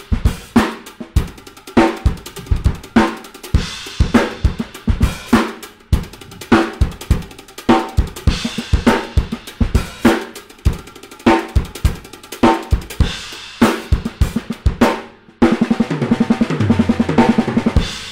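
Acoustic drum kit playing a reggae groove on bass drum, snare and cymbals, worked with six-stroke roll fills. Near the end a fast roll runs down across the toms, falling in pitch.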